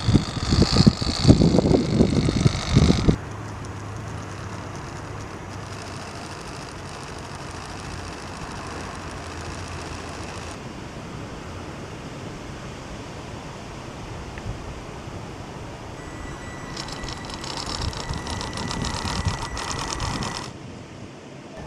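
Small electric motor and gearbox of a scale RC crawler, a Losi Mini Crawler drivetrain, whining as the truck churns through snow. It is loudest in the first three seconds, drops to a quieter steady hum, and comes back near the end with a steady high-pitched whine.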